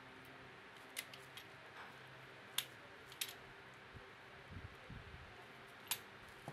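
A few sharp metallic clicks, the loudest about two and a half seconds in, as a WinGun Sport 733 CO2 revolver is handled and its cylinder worked.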